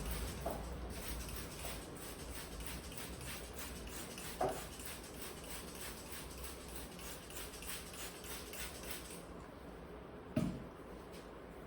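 Barber's hands on a client's head during a head massage: a fast run of light taps and strokes, with two short louder thumps about four seconds in and near the end.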